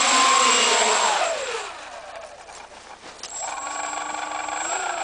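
Homebuilt quad-rotor's four brushless motors and three-bladed props spooling down after landing, their whine falling in pitch and fading about two seconds in. A softer steady whine starts again about a second later and rises slightly near the end.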